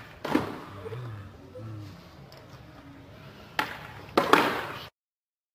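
A few sharp knocks and thumps with rustling between them, the loudest cluster near the end, then the sound cuts off abruptly.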